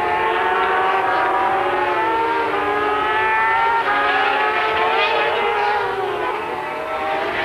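Racing sidecar outfits' engines running at high revs as two outfits go through a corner and accelerate away. Several engine notes overlap, their pitch sliding up and down.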